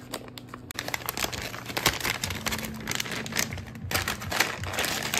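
Crinkly plastic being handled, rustling and crackling, with scattered sharp clicks and taps.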